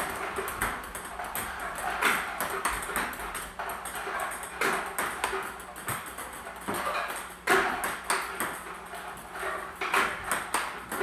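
Table tennis practice: a celluloid/plastic ping-pong ball clicking off the paddle and bouncing on the table, many sharp ticks at an irregular pace.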